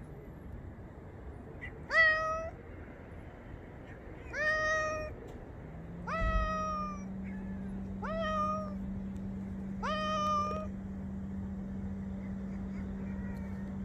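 A grey tabby-and-white cat meowing five times, about every two seconds, each meow short and rising quickly in pitch at its start. A steady low hum runs underneath from about six seconds in.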